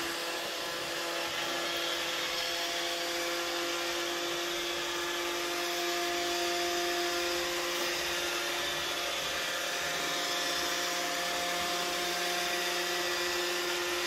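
iRobot Roomba 650 robotic vacuum cleaning, its vacuum and brush motors running with a steady whine over a hiss while it drives in a widening spiral.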